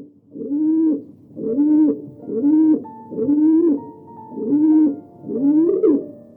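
A bird calling: a low call that rises and falls in pitch, repeated evenly about once a second, six times.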